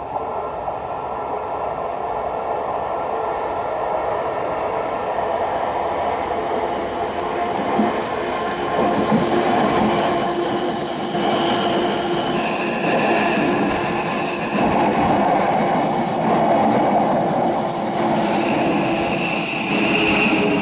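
Odakyu electric commuter train coming round a curve and running close past, growing louder. From about ten seconds in there is a rhythmic wheel clatter and a high, steady squeal from the wheels on the curve.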